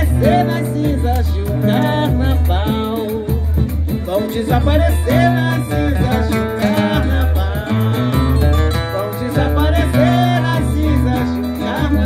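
Live samba: a woman singing into a microphone over a band with plucked guitar and a steady, pulsing low bass beat.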